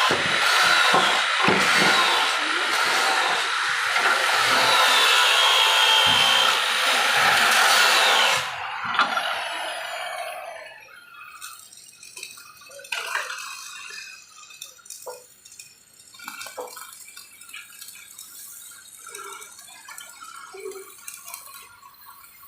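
Angle grinder grinding steel, a loud harsh hiss with a faint wavering whine, shutting off about eight seconds in and winding down. After that come scattered light metal clinks and knocks.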